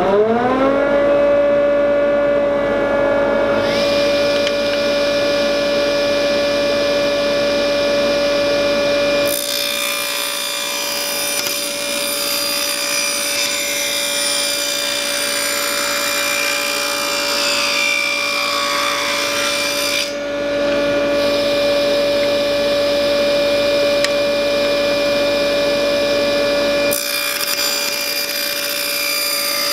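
Table saw motor finishing its spin-up in the first second, then running at a steady pitch. The blade cuts through mahogany from about a third of the way in to about two-thirds, drops back to free running, and starts cutting again near the end.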